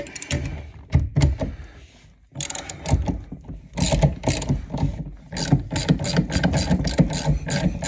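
Ratchet wrench clicking in quick strokes as it turns the screw of a compression ring puller, drawing the old compression ferrule off a copper supply pipe. There is a short pause about two seconds in, then a steady run of about three to four clicks a second.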